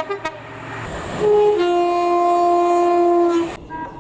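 Two-tone train horn sounding: a short higher note, then a long lower note held for about two seconds, followed by a brief, much higher toot near the end.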